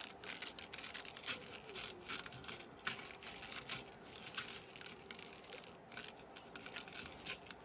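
Blunt practice trainer knife being flipped and handled, giving many light, irregular clicks and clacks.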